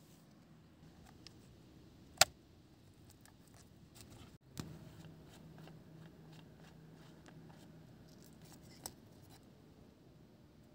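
Hands handling small survival-kit items: a single sharp click about two seconds in, then light clicks and rustling, with another click near the end.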